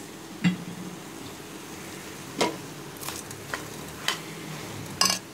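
Metal spoon stirring chicken curry masala in an aluminium pressure cooker: about six sharp scrapes and knocks against the pot at irregular intervals, the loudest about half a second in and near the end, over a steady low hiss.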